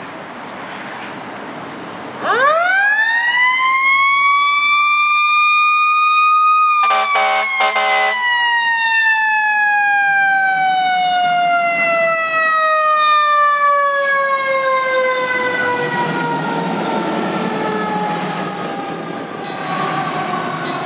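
Fire engine's siren winding up quickly to a high wail about two seconds in. A few air horn blasts follow a few seconds later. The siren then winds slowly down in pitch as the truck pulls away, with the diesel engine's rumble underneath near the end.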